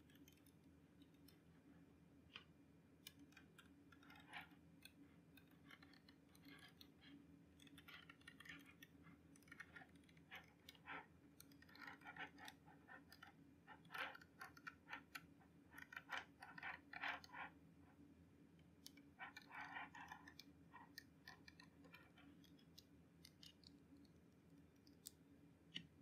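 Faint clicking of small magnetic balls snapping together and ticking against each other as they are handled, in irregular clusters that are busiest in the middle, over a faint steady low hum.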